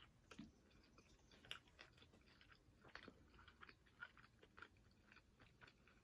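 Faint chewing and biting into a garlic-butter chicken wing: a string of small, irregular clicks and crunches.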